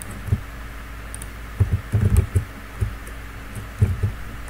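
Computer keyboard keys tapped a few times at an irregular pace, the taps bunched together about two seconds in.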